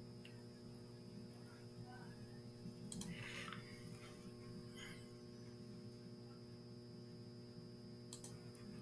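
Faint, steady electrical mains hum with a few sharp computer-mouse clicks, one about three seconds in and another near the end. A brief soft noise follows the first click.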